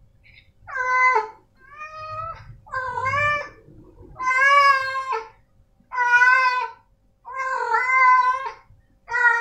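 Male tabby cat meowing over and over, about seven drawn-out, loud meows one after another, each lasting up to a second or so.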